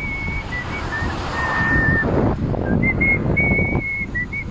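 A person whistling a tune in a run of held notes that step up and down, over a steady rush of wind noise on the microphone while riding.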